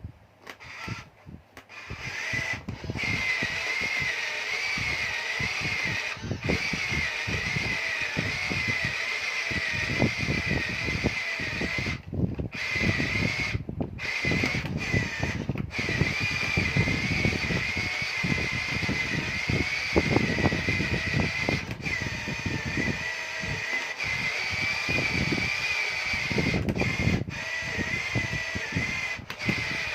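Small electric motor of a radio-controlled Huina construction model running with a steady, slightly wavering high whine, over irregular low clatter. The whine starts about two seconds in.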